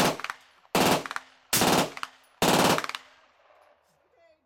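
Suppressed DPMS 16-inch AR-15-pattern rifle firing four short bursts of rapid fire. Each burst lasts about half a second, and they come less than a second apart.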